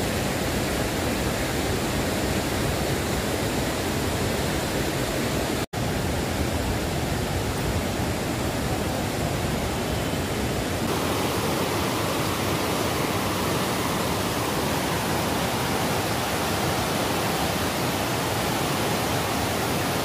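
Jaldhaka river rushing through whitewater rapids: a loud, steady roar of churning water, with a momentary gap about six seconds in and a slight change in tone near the middle.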